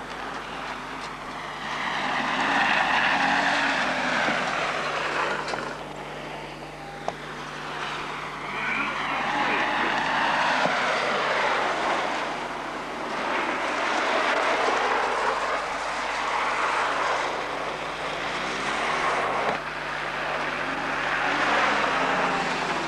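Racing car engines on a snow circuit, revving hard as cars pass one after another. The engine noise swells and fades several times, its pitch climbing and dropping through the gears.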